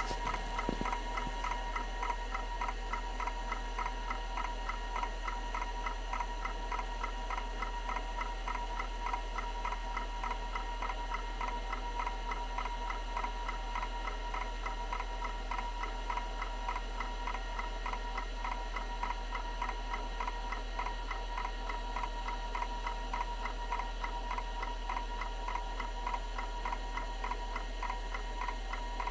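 Kalok KL343 Octagon hard drive running, its heads ticking in a rapid, even rhythm over a steady whine as they step across the disk during a bad-sector surface scan.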